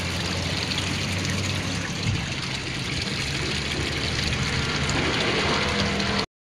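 Steady outdoor background noise with a low hum underneath, cutting off suddenly near the end.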